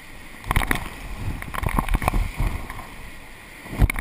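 Whitewater rapid rushing around an inflatable raft, with waves splashing and slapping against the raft and several sudden loud surges as it punches through big waves.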